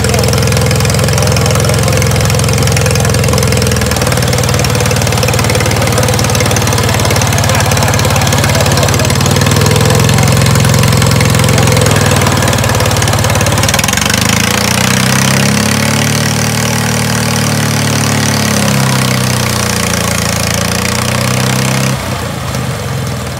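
Half-scale Caterpillar 2U crawler's engine running steadily, its speed rising and falling in slow swells about two-thirds of the way through. The sound drops off suddenly near the end.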